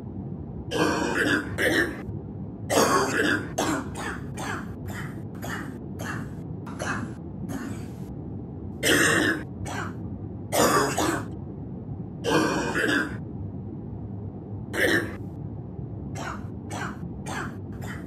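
A person coughing again and again with a bronchitis cough: a long, irregular run of coughs, some drawn-out and many short and quick in succession.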